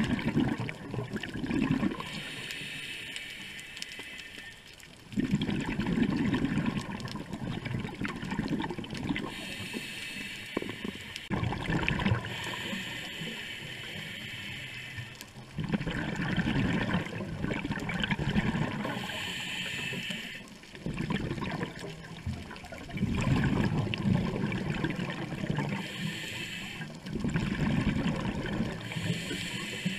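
A scuba diver breathing through a regulator underwater: a hissing inhale alternating with a longer, louder rush of exhaled bubbles, several breaths in a row.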